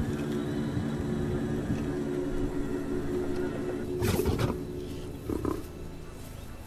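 Lions snarling at each other: a sudden loud snarl about four seconds in and a shorter one about a second later, over a steady low drone.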